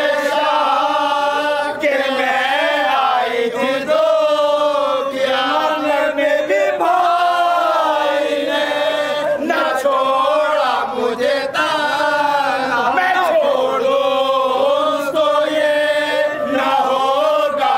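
A group of men chanting a marsiya, an Urdu mourning elegy, together in loud, continuous voices with no pause.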